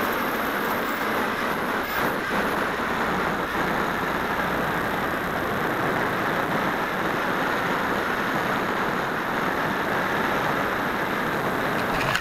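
Steady rushing wind noise: air streaming over the wing-mounted keychain camera's microphone as an electric RC glider glides in low to land.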